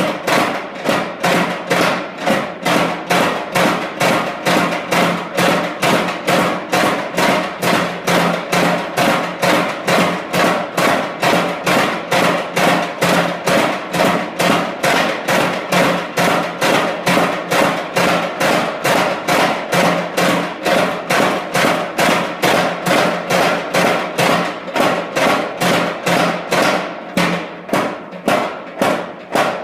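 Mechanical flywheel-driven power hammer forging hot steel, its dies striking in a steady train of blows, about two to three a second, over a steady hum. Near the end the blows become uneven.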